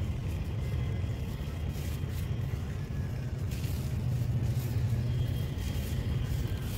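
Dry crumbled clay soil pouring from a hand into a basin of dust: a faint sandy hiss with small crackles, coming in short pours, over a steady low rumble that is the loudest thing heard.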